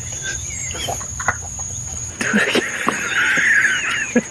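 A person's high-pitched, wheezing laugh, starting about halfway through and running for about two seconds.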